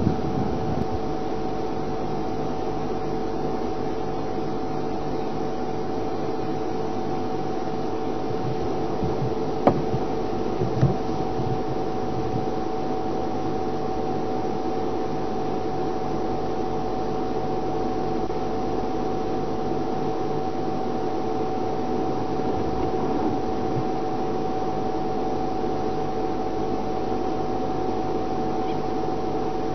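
Game-drive vehicle's engine idling: a steady, even hum, with two brief knocks about ten seconds in.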